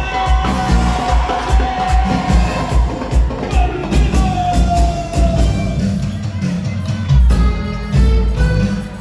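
Live cuarteto band music with a heavy, regular bass beat under long held melody lines.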